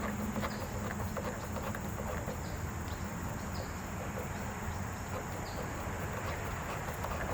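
Steady, high-pitched drone of insects such as crickets, with scattered light clicks and taps from hand tools at work.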